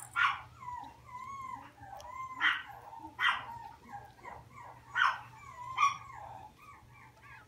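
Several Chihuahua puppies yipping and whining as they play: a run of high, squeaky whimpers with about five sharper yips among them.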